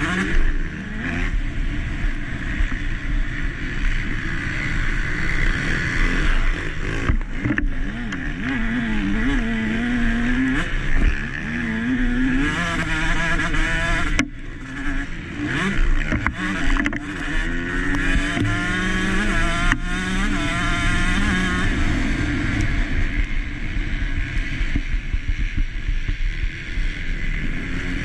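KTM SX 150 two-stroke motocross engine racing hard, revving up and down through the gears with repeated rising sweeps. About halfway through the throttle cuts briefly, then it picks up again.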